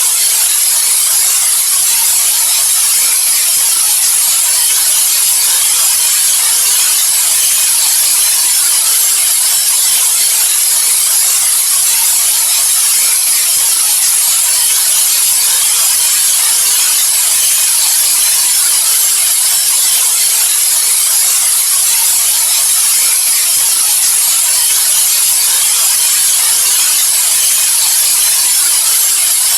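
Loud, steady white noise: an even hiss that is strongest in the high treble and does not change.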